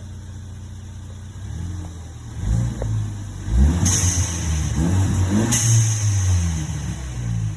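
Turbocharged car engine revved several times in quick blips. A short hiss comes twice, about four and five and a half seconds in: the blow-off/bypass valve with its new adapter venting as the revs drop.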